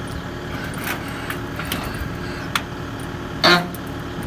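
A motor vehicle engine running steadily, with a few light clicks. A short, loud pitched sound comes about three and a half seconds in.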